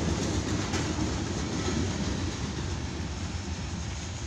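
Rear of a CSX mixed freight train passing: the freight cars' steel wheels rolling on the rails, a steady low rumble that slowly fades as the last tank car goes by.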